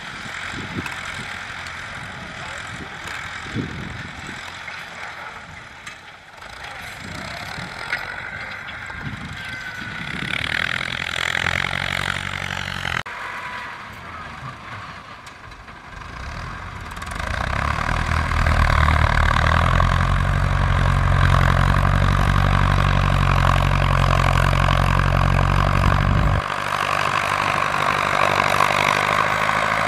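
Ford farm tractors' diesel engines working under load as they level soil, one pulling a disc harrow and one pushing earth with a front blade. The engine sound grows much louder and steadier about halfway through as the blade tractor works close by.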